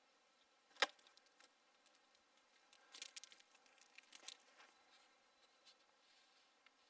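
Near silence broken by a sharp click a little under a second in, then a few short runs of faint crackling clicks around three and four seconds in.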